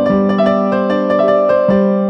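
Background music: a piano playing a slow melody of single struck notes over held chords, with a change of chord near the end.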